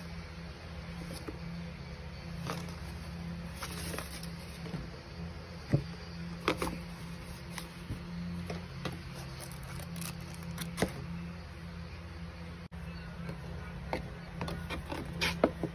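A hat and a cardboard gift box being handled: scattered rustles, taps and clicks as the bucket hat is set into the box and the box flaps are folded over, the sharpest tap about six seconds in and a cluster near the end. A steady low hum runs underneath.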